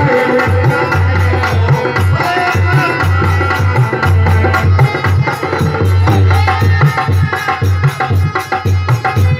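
Live devotional bhajan music: amplified hand drums beat a steady rhythm under a sustained melody, with fast, evenly repeating percussion strikes on top.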